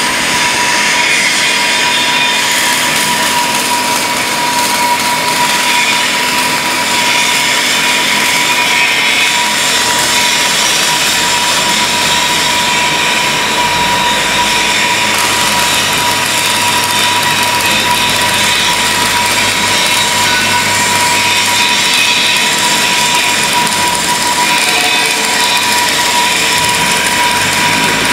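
GZK4240 double-column automatic band saw cutting through a bundle of square metal bars: a steady, loud blade noise with a constant high whine running through it.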